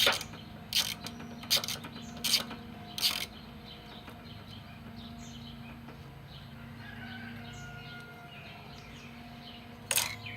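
Ratchet socket wrench clicking in short strokes, about one every three-quarters of a second through the first three seconds, then again near the end. In between, a steady low hum and faint bird chirps.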